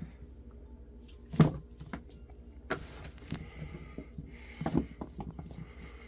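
Scattered knocks and clatter as fermented fish and radish are scooped and packed into food containers, the loudest knock about a second and a half in, over a faint steady hum.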